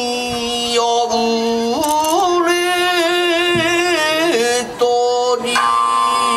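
Biwa recitation: the narrator chants in long held notes with a wavering vibrato, sliding up to a higher pitch about two seconds in and back down after about four seconds.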